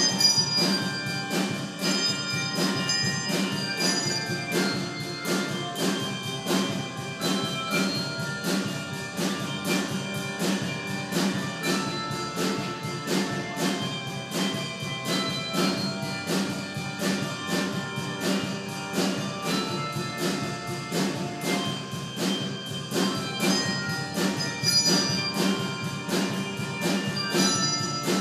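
Handbell choir playing a quick, even run of ringing bell notes with held lower tones underneath.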